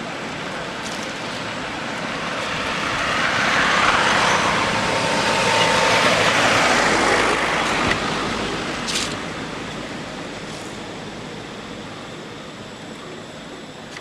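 A vehicle passing by: its broad road noise swells over a few seconds, peaks, and slowly fades away. A short faint click comes near the end of the loud part.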